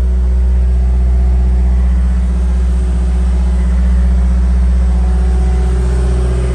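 Cat 259D compact track loader's four-cylinder diesel engine running at a steady speed, a loud, even low hum.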